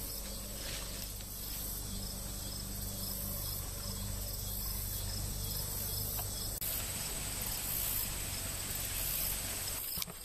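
Insects trilling in a steady, high-pitched chorus, over a low steady hum.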